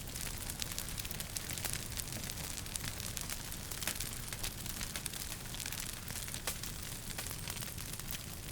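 Wood fire burning in a fireplace, crackling with a steady hiss and frequent sharp pops, a few of them louder, about one and a half, four and six and a half seconds in.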